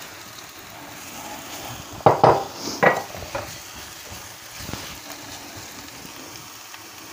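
Grated onion sizzling gently in olive oil in a frying pan, with a silicone spatula scraping and knocking against the pan and a plastic mortar as crushed garlic and cumin go in; a quick run of scrapes and knocks comes about two seconds in, then a single one near five seconds, then stirring.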